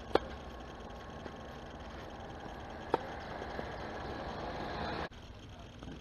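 Tennis racket striking a ball with a sharp pop just after the start, then a second ball strike about three seconds in, over a steady outdoor rush that grows and cuts off suddenly about five seconds in.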